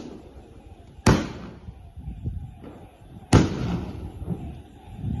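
A '15 shots' multi-shot firework cake going off, with sharp bangs about a second in, at about three and a half seconds, and again right at the end, each trailing off in echo. The uploader says it misfired, with the shots falling to the ground instead of going up.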